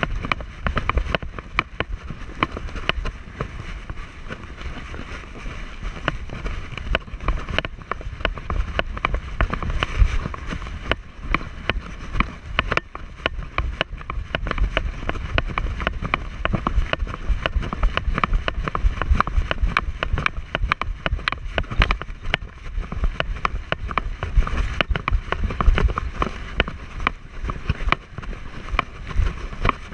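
Continuous jostling and clatter picked up by a camera worn on a husky shepherd mix as it moves over desert gravel: quick, irregular crunches and clicks of paws and harness, over a low rumble of wind and handling on the microphone.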